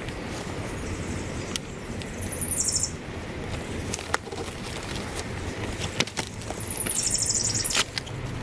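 Bootlaces being pulled tight through the hooks of wading boots: two short rasping zips about four seconds apart, with a few light clicks in between.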